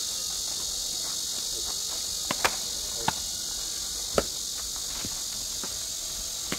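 Steady high-pitched chirring of crickets, with about five sharp knocks spread over the second half, typical of a bat striking balls.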